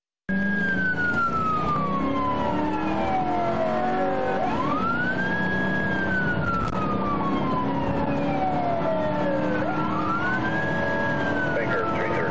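Police car siren wailing, cutting in abruptly just after the start: each cycle sweeps quickly up, holds briefly, then falls slowly over about four seconds, about two full cycles in all. Steady engine and road noise from the moving patrol car lies underneath, picked up by the dashcam.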